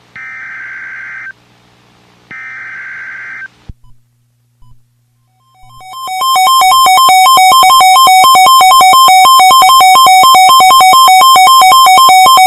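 Emergency Alert System signals. First come three roughly one-second bursts of SAME header data: the screechy digital warble that opens an alert. Then, after a short gap, a loud electronic attention tone fades in, warbling rapidly between two pitches, announcing the tornado warning that follows.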